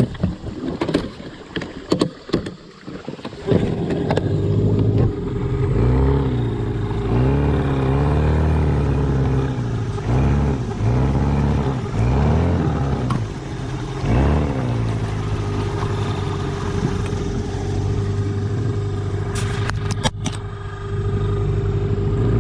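Clatter and knocks, then about three and a half seconds in the small boat's motor starts and runs, its pitch repeatedly rising and falling as it is revved up and down while the boat works through shallow water, then settling to a steady run. A few sharp clicks near the end.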